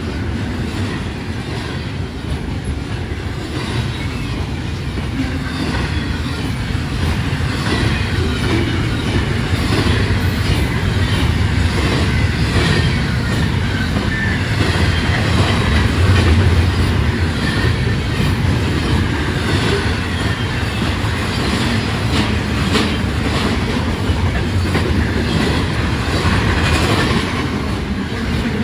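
Freight train cars rolling past on the rails, a continuous loud rumble with steady clickety-clack from the wheels.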